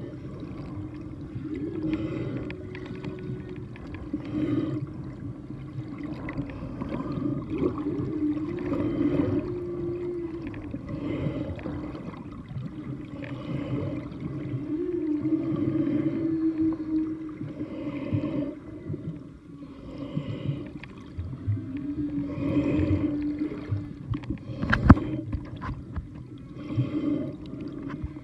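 Humpback whale song heard underwater: a long series of low, drawn-out calls that waver in pitch, with shorter pulsed sounds between them. A single sharp click comes near the end.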